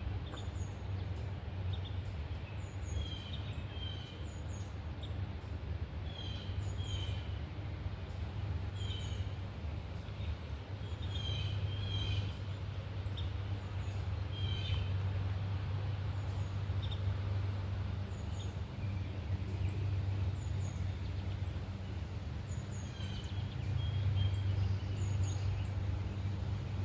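Small birds chirping repeatedly with short, quick notes, thickest in the first half and again near the end, over a steady low rumble.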